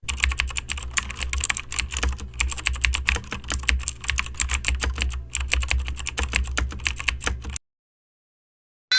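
Rapid typing on a computer keyboard, a dense run of irregular key clicks over a low hum, cutting off suddenly near the end.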